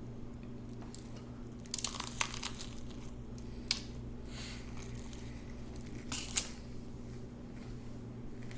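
Crunchy food being bitten and chewed close to the microphone: sharp crackly crunches in small clusters about two seconds in, once near four seconds and again about six seconds in, over a steady low hum.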